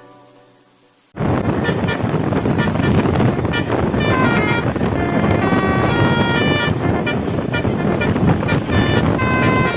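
A bus's telolet basuri air horn playing a quick tune of short stepped high notes over loud wind buffeting on the microphone and vehicle noise, which cut in suddenly about a second in.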